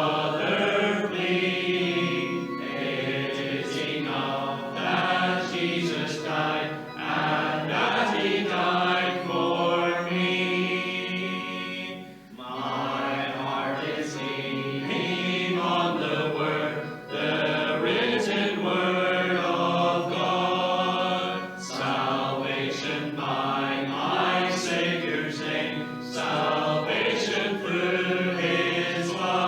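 A church congregation singing a hymn together, with brief breaks between lines.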